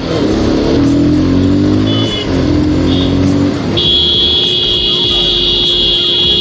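Motorcycle horn sounding over running engine and traffic noise: short beeps about two and three seconds in, then one long held blast from about four seconds in to the end.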